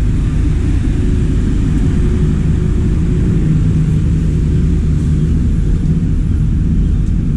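Bus engine idling: a steady low rumble with an even hum.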